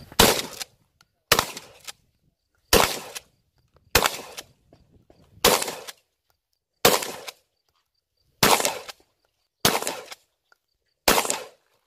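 Shotgun fired nine times in steady succession, about one shot every one and a half seconds, each with a short echoing tail.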